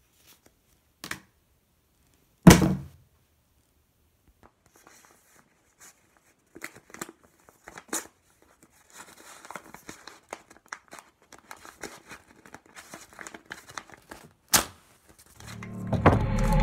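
A paper envelope being opened and its contents handled, with light crinkling and rustling of paper. A few sharp knocks come through, the loudest about two and a half seconds in.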